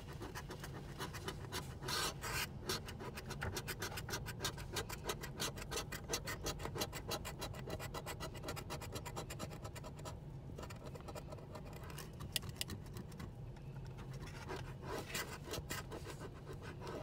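Scratch-off lottery ticket's coating being scraped off with rapid, repeated back-and-forth strokes of a hand-held scratcher, easing off briefly a couple of times.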